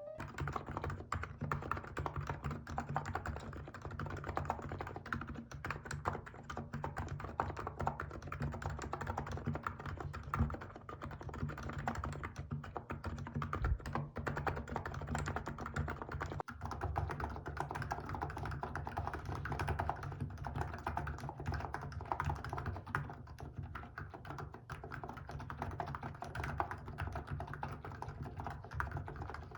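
Continuous fast typing on a Hansung GK868B electro-capacitive (Topre-style) keyboard with 35 g switches, fitted with XDA-profile Apple-style keycaps: a steady flurry of key presses.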